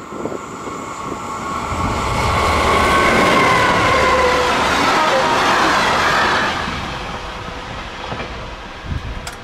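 Locomotive-hauled freight train of covered hopper wagons passing close by: a rising rumble of wheels on the rails, loudest in the middle, with a few high tones that slide slightly lower. It then fades as the train runs away, and there is a brief sharp click near the end.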